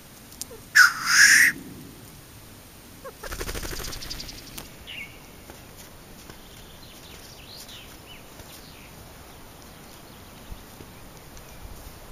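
A black grouse cock gives a loud hissing sneeze call about a second in. A few seconds later comes a buzzing, fluttering rattle lasting about a second, followed by faint songbird chirps.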